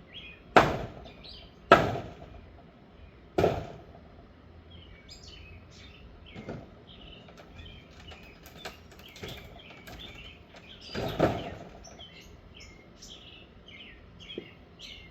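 Heavy blows striking wood as an old wooden structure is knocked apart: three loud hits in the first four seconds, a longer one about eleven seconds in, and lighter knocks between. Birds chirp throughout.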